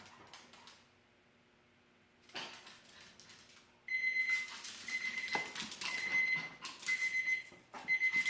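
Digital kitchen timer going off about four seconds in as its countdown ends: a high, repeated beeping in pulses of about half a second to a second. Scuffling and clicking noises sound over the beeps.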